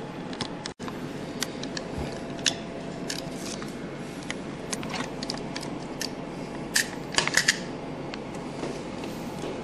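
Small plastic clicks and ticks from refillable ink-system cartridges being handled, with a quick run of four sharp clicks about seven seconds in, over a steady background hum.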